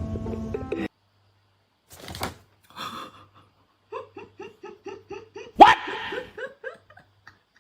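Background music that cuts off about a second in, then a person laughing in a quick run of ha-ha pulses, about four a second, with one loud burst of laughter partway through.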